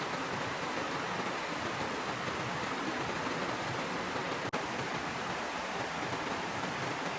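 Steady rushing water of a waterfall, an even unbroken roar of falling water, with a split-second dropout a little past halfway.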